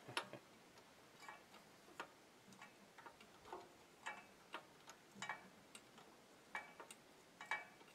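Faint, irregular metal clicks and taps from hand work on a portable generator's engine, as a used spark plug is fitted in place of a fouled one.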